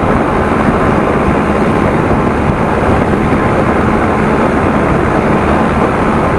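Farm tractor's diesel engine running steadily while driving along, heard from the driver's seat right beside the engine and its upright exhaust stack.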